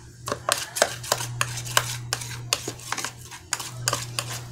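A plastic spoon stirs sticky glue slime in a plastic tub, giving quick, irregular clicks and scrapes as it knocks the tub's sides. The activator has just gone in and the slime is still forming. A steady low hum runs underneath.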